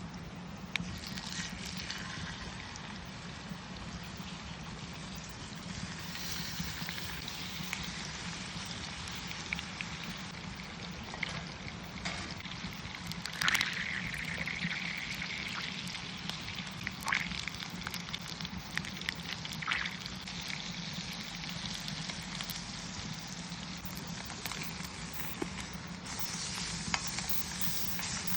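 Beef tenderloin sizzling as it cooks: a steady crackling hiss with scattered sharp pops, the loudest about halfway through.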